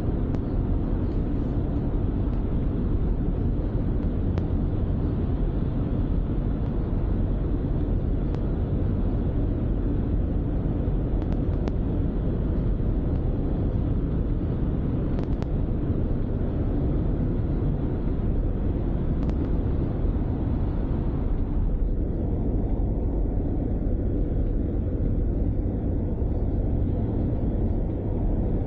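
Steady road and engine noise of a moving car heard from inside the cabin, mostly a low rumble with some hiss and a few faint clicks. About two-thirds of the way through, the higher hiss drops away and the rumble carries on.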